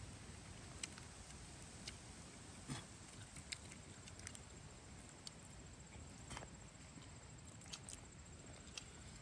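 Near silence with scattered faint clicks and rustles from people eating with their fingers off plates, roughly one a second.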